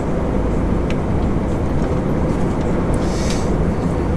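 MAN TGX semi-truck's diesel engine and road noise heard from inside the cab while driving, a steady low rumble. A short hiss comes about three seconds in.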